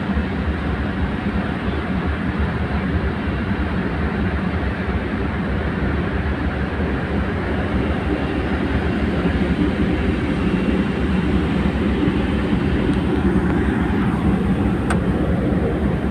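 Tugboat's diesel engines running steadily, a continuous low drone heard from on deck, growing slightly louder in the second half.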